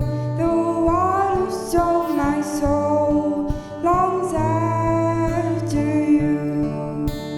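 Congregational worship song: voices singing a melody over band accompaniment with held bass notes.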